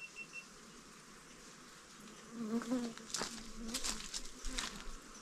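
A bee buzzing close by from about two seconds in, its pitch wavering, with a few sharp clicks over it.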